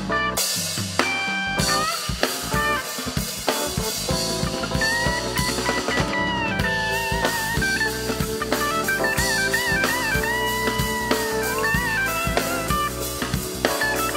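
Live band playing: a busy drum-kit groove under electric guitar and keyboard, with a bending lead melody coming in about five seconds in.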